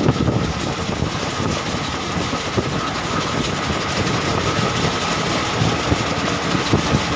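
Moving passenger express train heard from its open coach doorway: steady running noise of the wheels on the rails, with light clicking as they pass over the track.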